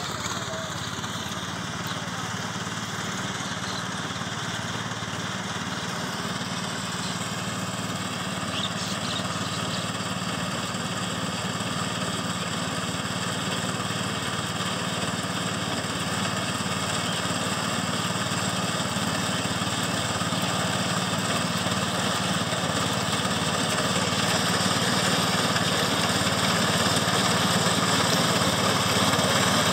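Small engine of a walk-behind grass-cutting mini tractor running steadily as it mows, growing gradually louder as the machine comes closer.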